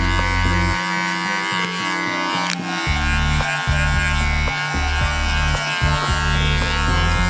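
Electric hair clipper buzzing steadily as it trims a beard, with background music playing underneath.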